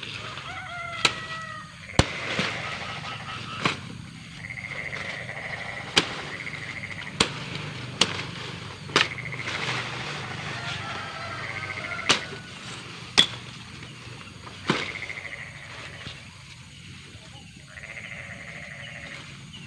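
Sharp knocks, about ten of them at irregular intervals of one to three seconds, over repeated trilling calls of frogs.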